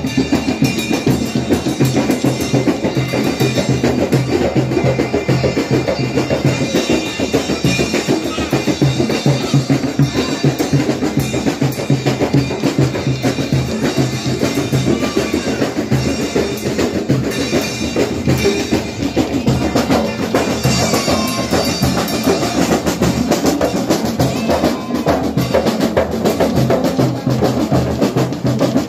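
A group of hand-beaten drums played together in a fast, steady rhythm as processional music.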